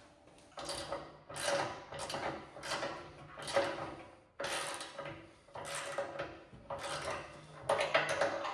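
Hand ratchet wrench being worked back and forth on the plow's bolts, a rasping run of clicks with each stroke, about one stroke a second.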